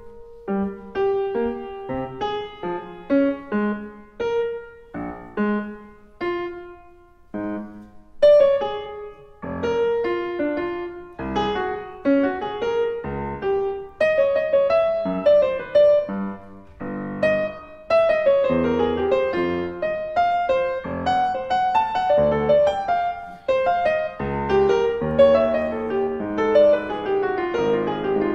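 Yamaha CFX concert grand piano playing solo, recorded through an Earthworks QTC30 omnidirectional microphone. It opens with single, spaced notes and chords, then grows fuller and busier about eight seconds in.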